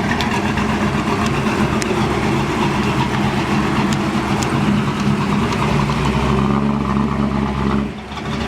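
A 1969 Chevrolet Camaro's engine running loudly and steadily, with a brief lull in its sound about eight seconds in.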